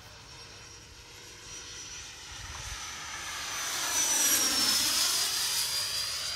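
Electric ducted fan of a radio-controlled HSD F-16 Thunderbird jet (105 mm fan, 12S battery) making a fast low pass. Its high whine grows louder, peaks about four seconds in as it goes overhead, then drops in pitch as it moves away.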